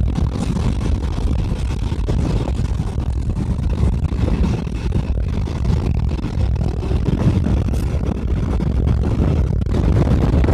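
Wind buffeting in the cabin of a moving car along with road rumble, a loud steady low rush with no letup.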